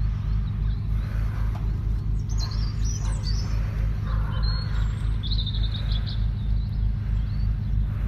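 Small birds chirping in short bursts, about two to three seconds in and again around five seconds, over a steady, low, evenly pulsing rumble.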